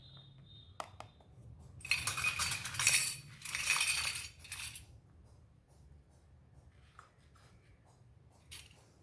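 Small pieces of a miniature toy kitchen set clinking and clattering together as they are handled, in a dense rattle lasting about three seconds, followed by a few light taps.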